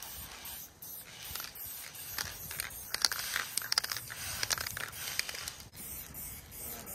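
Aerosol spray paint can hissing as paint is laid onto a wall, sprayed in a series of short strokes.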